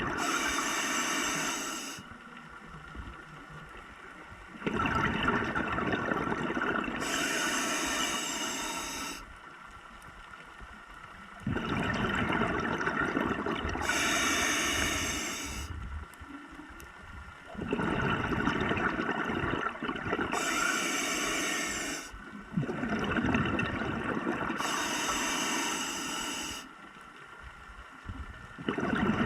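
Scuba diver breathing through a regulator underwater: about five breaths, each a rushing two-part spell of air and bubbling, with quieter gaps of about two seconds between them.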